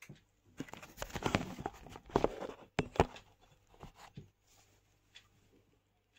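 Handling noises: rustling and knocking as the selfie stick is moved about in the hands, with two sharp clicks about three seconds in, then only a few faint ticks.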